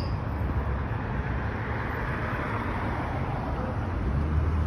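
Road traffic noise: a steady low rumble, with a vehicle passing by that swells and fades about two seconds in.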